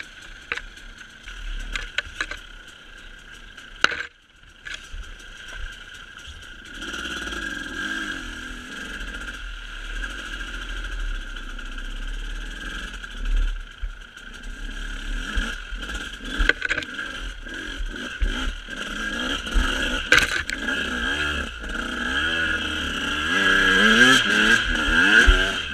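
A motor vehicle's engine running with a steady drone and low rumble. Its pitch rises repeatedly near the end as it accelerates.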